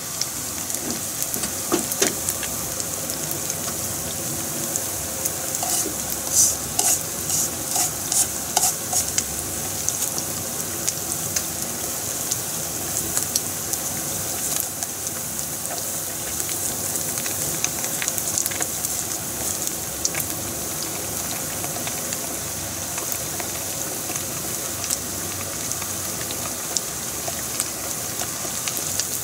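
Hot oil sizzling steadily in a frying pan as panko-breaded pieces deep-fry. There is a run of sharper pops and clicks about six to nine seconds in.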